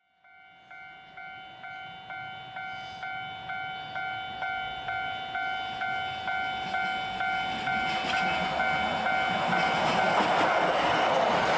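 Railway level-crossing warning bell ringing steadily, about two strokes a second, each stroke a clear ding that fades. From about eight seconds in, the running noise of an approaching red-and-cream Kotoden electric train grows louder and covers it, and the bell stops near the end as the train passes.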